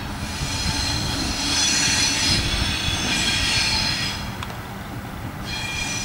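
Wheels of Bluebird railcar 257 squealing as it rounds a curve, a shrill high squeal over the railcar's low rumble. The squeal swells about a second and a half in, dies away about four seconds in, and picks up again near the end.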